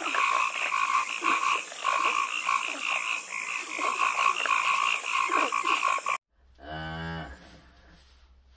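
Chorus of many frogs calling in rapid pulsing trills, which cuts off suddenly about six seconds in. Then a cow moos once, briefly.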